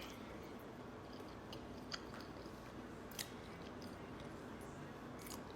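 Faint chewing, with a few short soft clicks of the mouth.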